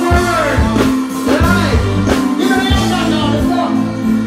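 Live reggae band playing loudly through a stage PA, with a steady bass line, regular drum hits and a male voice singing over it.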